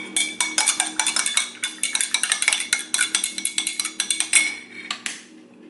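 A metal spoon stirring briskly in a coffee mug, clinking against its sides several times a second with a light ringing tone. It stops about five seconds in.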